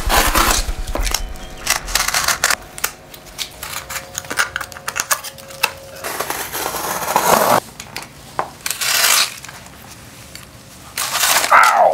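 Box cutter slicing through corrugated cardboard in several long scraping strokes, with scattered clicks and knocks as the cardboard and ruler are handled.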